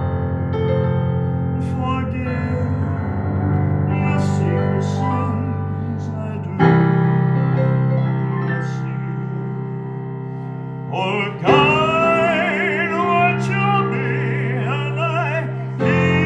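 Piano played in slow, held chords, with a louder new chord struck about a third of the way in. Near the two-thirds mark a voice joins, singing high with a wide vibrato.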